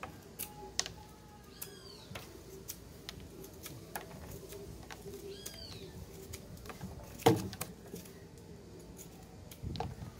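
Small fixed-blade neck knife with an 8Cr13MoV steel blade whittling a stick: short scraping and clicking strokes as the blade shaves wood, with one sharp, louder snap about seven seconds in and another near the end.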